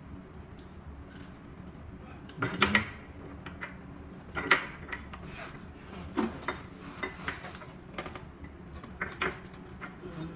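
Clicks and clacks of ceiling fan parts being handled as the downrod, with the wires through it, is fitted into the canopy on the motor housing. The loudest knocks come about two and a half and four and a half seconds in, with lighter taps after.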